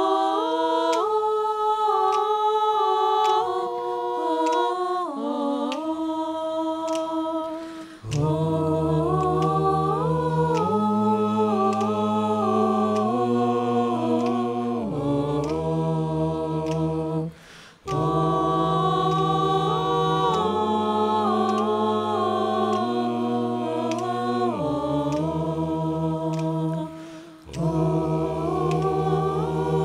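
Mixed a cappella choir singing in close harmony with voices only, no instruments. At first only the higher voices sing; about eight seconds in, low voices come in underneath. The singing breaks off briefly twice, once in the middle and once a few seconds before the end.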